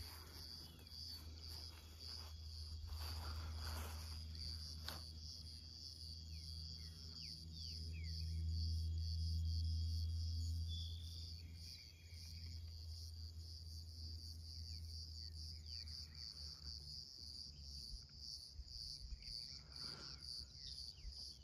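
Insects chirping in a steady, evenly pulsing high trill, faint, with a low rumble that swells about eight to eleven seconds in and a few brief bird chirps.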